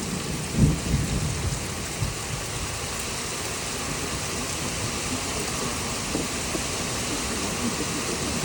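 Steady rain falling, with a rumble of thunder about half a second in that dies away over the next second or so.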